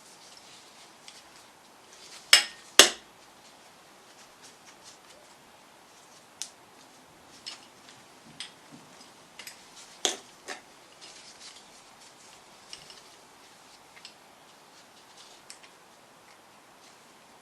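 Small steel tools and parts clinking and tapping on metal while the chain tensioner bolts are undone on an A-series engine's timing gear. Two sharp clinks about two seconds in, two more about ten seconds in, and light scattered ticks between.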